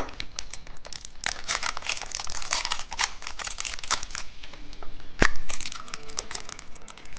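Plastic candy wrapper crinkling and tearing as it is opened, a quick run of crackles with one sharper snap about five seconds in.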